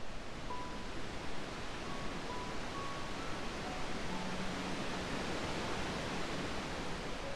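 Steady wash of gentle ocean surf, with soft ambient music laid over it as a few quiet held notes.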